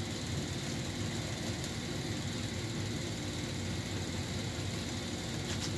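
Steady low mechanical hum with a hiss, a machine running in the background, with no distinct knocks or clicks over it.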